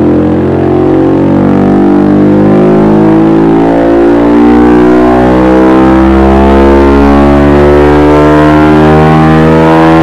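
Honda CBR 125R's single-cylinder four-stroke engine running through a Dominator aftermarket exhaust silencer on a rear-wheel dyno, its pitch climbing slowly and steadily as the revs build in a dyno pull.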